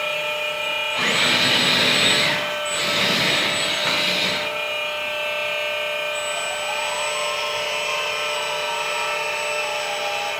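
Electric hydraulic pumps of a 1/12-scale metal RC excavator running with a steady whine. About a second in come two louder hissing stretches as the boom and arm are worked, and from about six seconds in a whine rises and falls as the machine moves.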